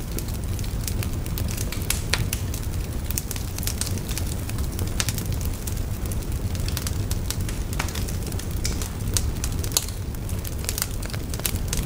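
Fire crackling: frequent sharp irregular crackles and pops over a steady low rumble of burning.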